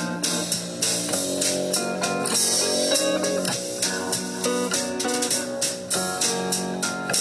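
Recorded music: a guitar playing a quick run of plucked notes over a drum kit.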